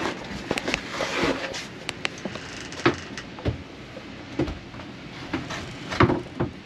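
A painted wooden bed guard rail being handled and fitted into place against the bed frame: scattered knocks and bumps of wood on wood, with rustling and scraping between, the sharpest knocks about three and six seconds in.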